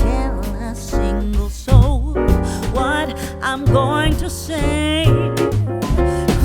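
Background music: a song with a singing voice holding wavering notes over keyboard and a steady bass line.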